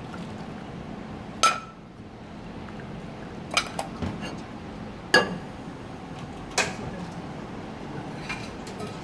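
Stainless steel kitchenware clanking: a ladle, a mesh strainer and a saucepan knock against one another and are set down, giving about six sharp clinks with short ringing. The loudest come about a second and a half in and about five seconds in.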